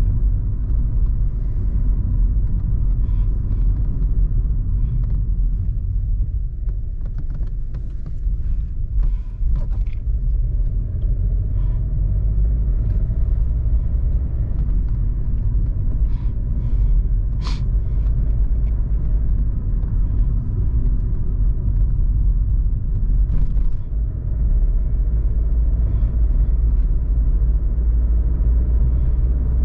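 Inside the cabin of a Volkswagen Polo 1.0 TSI, its turbocharged three-cylinder petrol engine under way: a steady low rumble of engine and road noise. Scattered faint clicks run through it, with one sharper click a little past halfway.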